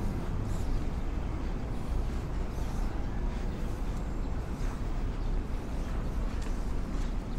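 City street ambience: a steady low rumble of traffic over a general outdoor hiss.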